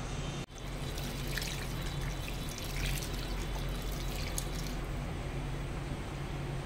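Water being poured into a cooking pot of raw beef trotters, onions and spices, splashing and trickling as the pot fills, over a steady low hum. There is a brief break in the sound about half a second in.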